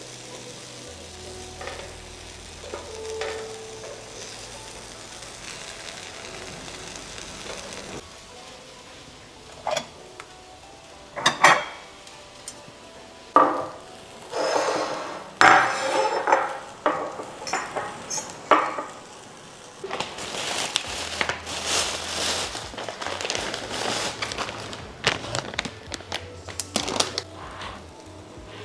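Meat sizzling on an electric tabletop grill plate. A steady hiss comes first, then sharp clinks of tongs and plates from about ten seconds in. The sizzling grows louder and uneven over the last third.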